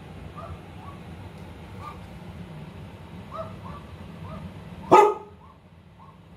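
A dog barking repeatedly in short barks, played from a dog-barking video through a laptop speaker. About five seconds in comes one much louder, fuller bark.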